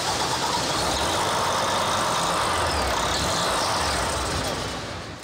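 Volvo truck diesel engine running at idle with a steady low rumble, fading out near the end.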